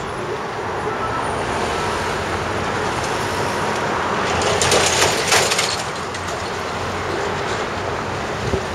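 Street traffic noise, steady, swelling louder for a second or so around the middle.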